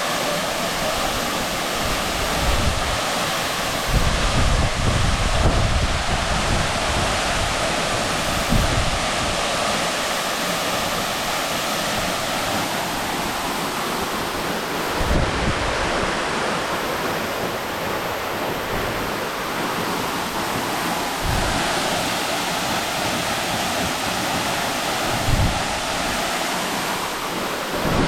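Waterfall running: a steady, dense rush of falling water, with wind now and then buffeting the microphone in low gusts.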